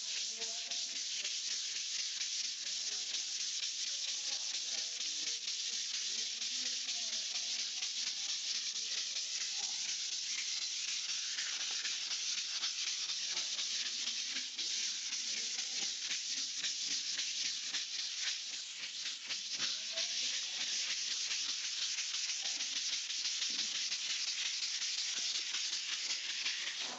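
Folded dry sandpaper rubbed by hand over a dried coat of wall putty: a steady, scratchy rasping hiss of quick back-and-forth strokes, easing off briefly about two-thirds of the way through.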